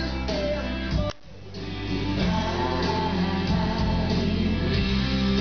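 Recorded music with guitar and singing playing over a PA system, with heavy bass from the subwoofers. It drops out briefly about a second in, then another passage comes in and builds up in loudness.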